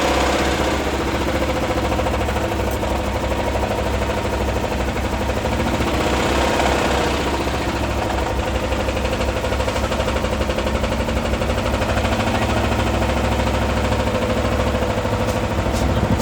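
Chevy HHR engine idling with a rod knock: a steady, rapid knocking from the bottom end. A few sharp clicks come near the end.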